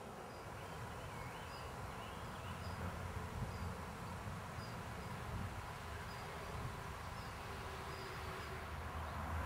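Faint countryside ambience: insects buzzing and short high chirps repeating about once a second, over a steady low rumble.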